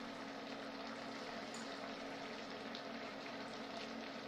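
Mushroom sauce simmering in a pan, a steady bubbling hiss, with faint rustles as handfuls of fresh kale are dropped in. A steady low hum runs underneath.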